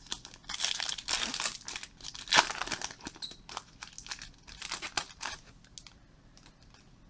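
Foil trading-card pack wrapper crinkling and tearing as it is handled and pulled open, a dense crackle for about five seconds, loudest near the middle, then dying away.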